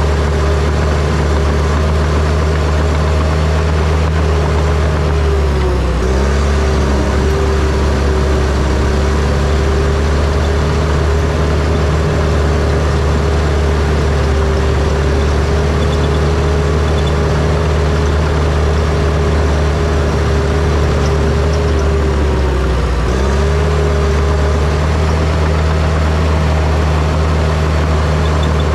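John Deere crawler dozer's diesel engine running steadily at working speed. Its pitch sags briefly and recovers twice, about six seconds in and again about twenty-three seconds in, as the engine takes load.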